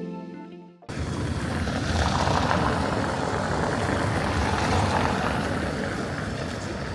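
A piano chord fades out. Just under a second in, it cuts abruptly to steady outdoor city ambience: a dense rumbling wash of street noise.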